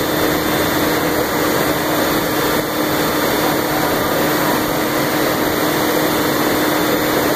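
A 500 hp shunt-wound DC motor running steadily under heavy load on a test stand, at about 1,150 rpm and about 310 kW. The running noise is loud and even, with a steady hum through it.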